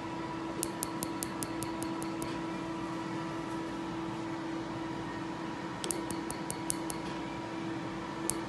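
PicoSure picosecond laser firing on tattooed skin: runs of sharp, snapping clicks about five a second, one pulse per click, in a burst of about two seconds near the start, another about six seconds in and a few more near the end. A steady hum from the laser unit runs underneath.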